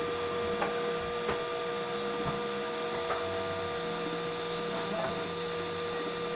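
3D printer running, its stepper motors whining in steady tones that change pitch and switch on and off as the print head moves, with a few faint ticks.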